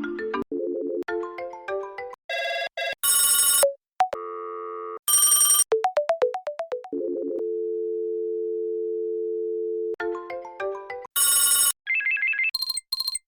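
Synthesized telephone-style sound effects: clipped electronic beeps and harsh buzzy tones, a quick run of chirps around the middle, then a steady two-note dial tone for about three seconds, followed by more beeps and high chirps.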